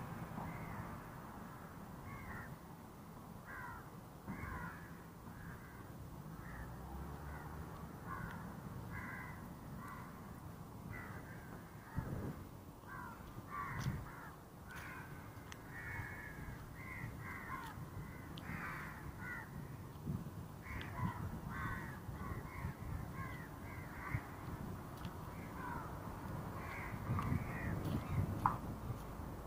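Birds calling: many short calls overlapping, several a second, over a low steady background rumble.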